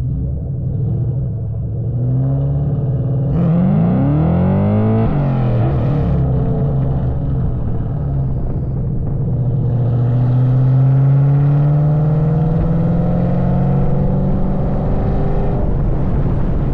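2003 Mustang SVT Cobra's supercharged 4.6-litre V8 through an SLP Loudmouth exhaust, accelerating hard. The revs climb steeply, drop at an upshift about five seconds in, then climb slowly again in the next gear before the throttle lifts near the end.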